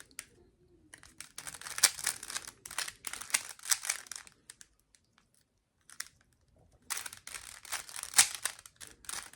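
Rubik's Cube being turned quickly by hand: rapid clicking and clacking of its plastic layers, in two runs with a pause of a couple of seconds about halfway through.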